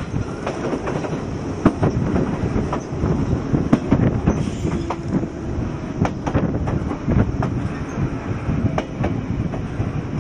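JR 115 series electric train running on the rails: steady wheel rumble broken by many sharp clicks and clatters as the wheels cross rail joints and points, with wind noise from the train's movement on the microphone.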